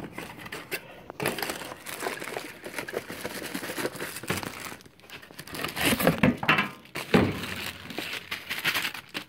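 Packaging crinkling and rustling as a subscription box is opened and its contents are pulled out, with louder handling noises about six and seven seconds in.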